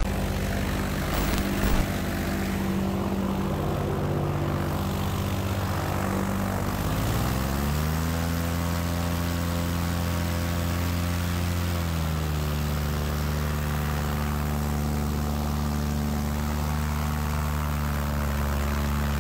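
Airboat's 30 hp Loncin engine driving its air propeller under way. The revs climb about seven seconds in and hold high, ease off slightly around twelve seconds, then hold steady.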